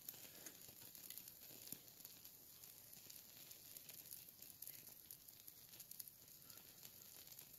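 Faint crackling and hissing of a small fire of dry twigs and burning tree sap, with scattered light ticks as it catches.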